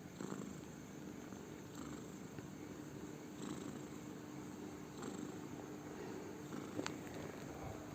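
Sleeping cat snoring with a purr-like rumble that swells with each breath, about every one and a half seconds. There is a small click about seven seconds in.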